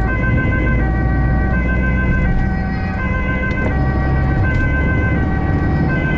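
Ambulance two-tone siren switching between a high and a low note about every three-quarters of a second, over the steady low rumble of the vehicle driving.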